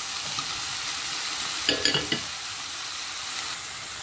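Minced chicken with onion and garlic sizzling in oil in a pan, stirred with a wooden spoon; the spoon scrapes briefly against the pan a little before halfway.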